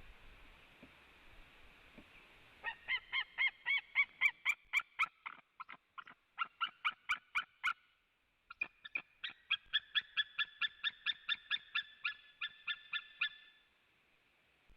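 White-tailed eagle calling: two long series of short, rapid calls, about four a second, the second series starting about a second after the first stops.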